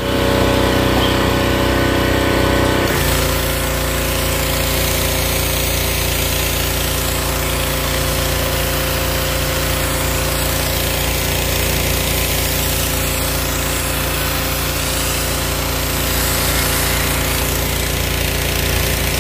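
Petrol pressure washer's 8 hp, 223 cc engine running steadily under load, driving its triplex pump, with the hiss of high-pressure water spraying from a bent nozzle wand. The sound changes abruptly about three seconds in.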